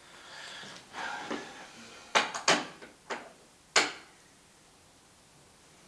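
Soft rustling, then a handful of sharp clicks and knocks over about two seconds, the loudest about two and four seconds in.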